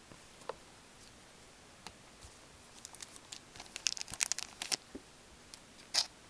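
Plastic wrapper of an O-Pee-Chee hockey card pack crinkling and tearing as it is opened by hand: a few faint clicks, then a run of quick crackles from about three seconds in and another short burst near the end.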